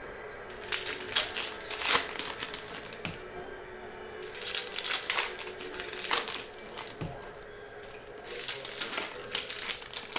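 Foil trading-card pack wrappers crinkling and cards clicking as packs are opened and the cards handled, in short bursts, with background music underneath.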